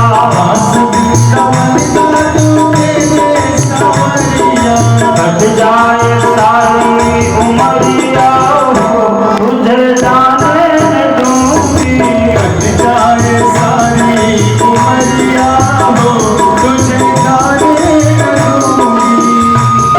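Devotional kirtan music: sustained melodic tones over a steady drum beat, with rattling hand percussion.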